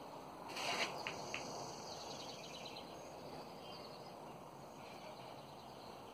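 Quiet outdoor background with faint, repeated chirping. A brief rustle and two small clicks come about a second in.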